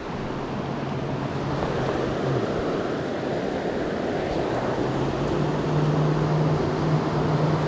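River water rushing steadily over rocks and riffles, a continuous even noise.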